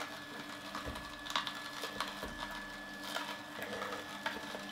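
Horizontal slow juicer crushing carrot pieces pressed down its chute with a plunger: a steady low motor hum with irregular cracks and clicks as the auger grinds the carrot.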